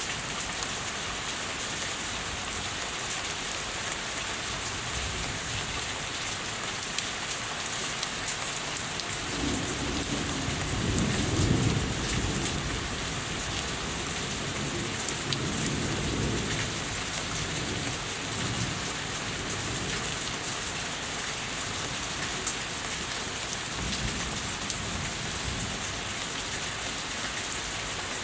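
Steady heavy rain falling and running off a house, with drops ticking on nearby surfaces. A roll of thunder rumbles in about ten seconds in, is loudest a couple of seconds later, and fades away within about seven seconds.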